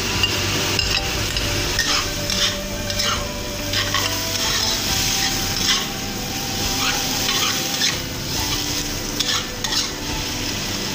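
Shirataki noodles and pickled mustard greens stir-frying in oil in a hot wok: a steady sizzle, with irregular scrapes and clatters of a utensil stirring against the pan.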